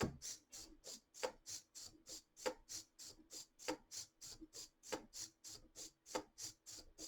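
Hobby servos of a 3D-printed robot cat stepping in place: an even rhythm of short plastic ticks and whirs, about four a second, with a louder knock of a foot roughly every second and a quarter.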